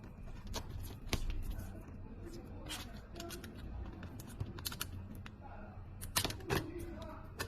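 Hands working electrical tape around a twisted copper-wire splice: scattered small clicks, snips and scraping rustles at irregular intervals, strongest about a second in and again around six seconds.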